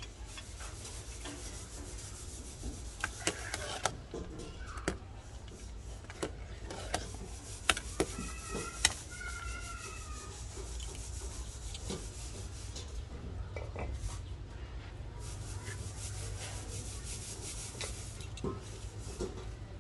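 A pot of fish soup at a rolling boil: a steady bubbling hiss, with a few sharp clicks and knocks in the first half.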